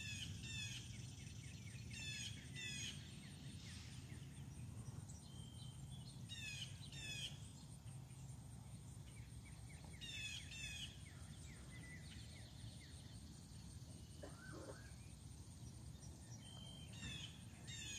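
Songbirds singing in short phrases of quick falling high notes, a phrase every few seconds, over a steady low rumble of breeze.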